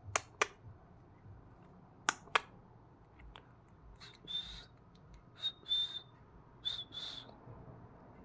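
Short, steady, high whistled notes, mostly in pairs, starting about four seconds in, after two pairs of sharp clicks near the start.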